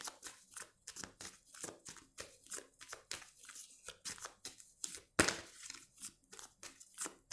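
A deck of tarot cards being shuffled by hand: a quick run of soft card snaps, about three or four a second, with one louder slap about five seconds in.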